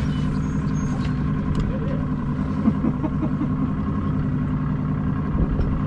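Boat engine idling steadily, a constant low hum with an even pitch.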